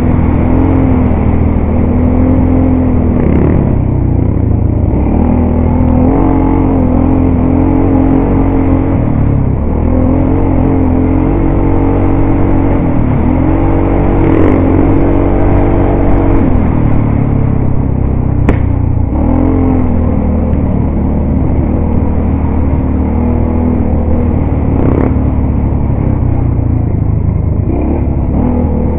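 ATV engine running while riding a gravel trail, its pitch rising and falling again and again as the throttle is opened and eased off. A couple of sharp clicks late on.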